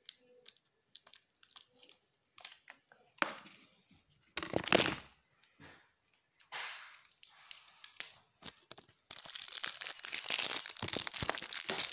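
Plastic packaging being crinkled and torn open by hand: scattered crackles, a louder tear about four to five seconds in, then a dense continuous crinkling from about nine seconds on.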